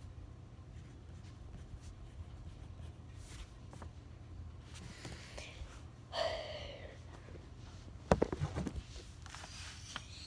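Faint scratching of writing on paper, a short burst of voice about six seconds in, then a cluster of knocks and rubbing about eight seconds in as the phone is picked up and handled.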